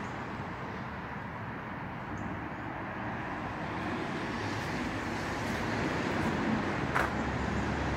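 Steady background noise of distant road traffic, growing a little louder in the second half, with a single light click about seven seconds in.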